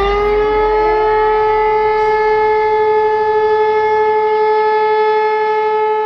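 Rooftop civil-defence siren sounding during a siren test: its pitch finishes rising in the first half-second, then it holds one steady, loud tone.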